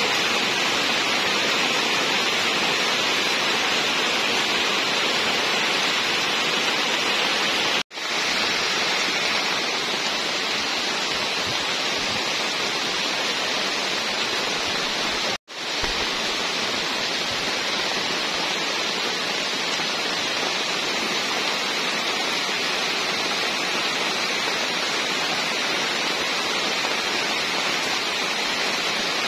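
Heavy rain falling steadily on leaves and ground, an even hiss. It breaks off twice for a split second.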